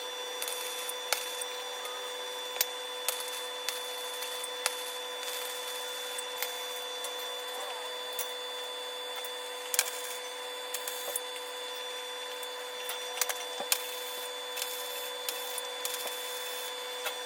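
MIG welder tacking steel tubing from an old trampoline frame: a steady hum and hiss broken by scattered sharp pops.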